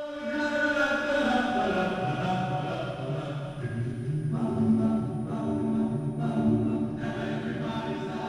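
Choral singing: several voices in harmony holding long notes.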